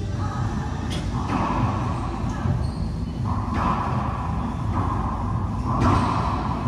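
Racquetball rally: sharp cracks of the ball off racquets and court walls, ringing in the enclosed court, over a steady low rumble. The clearest strikes come about a second in and again near the end.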